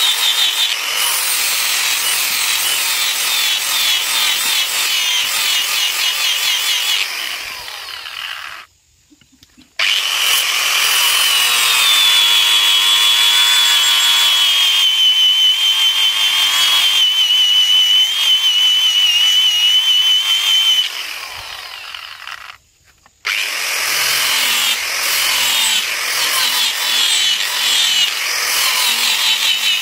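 Angle grinder grinding the steel blade of a slaughtering machete: a loud, steady rasp with a high whine through the middle part. It drops out twice, briefly, about nine seconds in and again about twenty-three seconds in.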